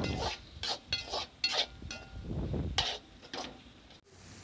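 Metal spatula scraping and clinking against a metal kadai while stirring a thick sauce-coated onion mixture: a string of short scrapes and knocks, a few with a brief metallic ring from the pan.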